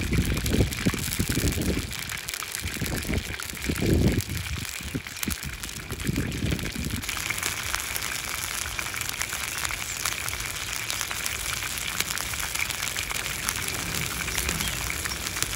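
Chicken pieces deep-frying in hot oil in a cast iron wok, a steady crackling sizzle. Low, uneven rumbles come through during the first seven seconds or so.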